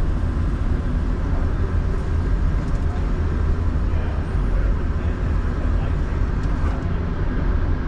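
Electric target retriever on an indoor range running a paper target back along its overhead track after its control button is pressed, heard as a steady low rumble with no shots.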